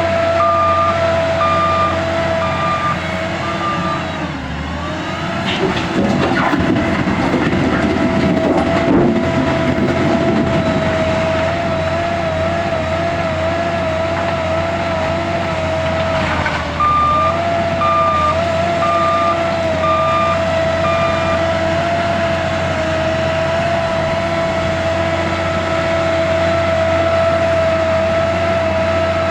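L&T 9020 wheel loader's diesel engine running with a steady whine, its reversing alarm beeping at the start and again about two-thirds of the way through as the loader backs up. In between, a rough rushing noise lasts several seconds as rock is handled into the train wagon.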